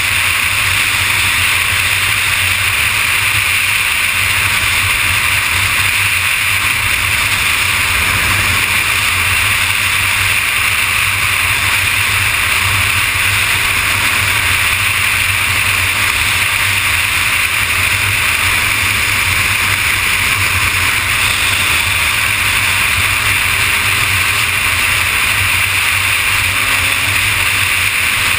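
Kawasaki ZX-6R's inline-four engine running at a steady freeway cruise, under a constant loud rush of wind and road noise.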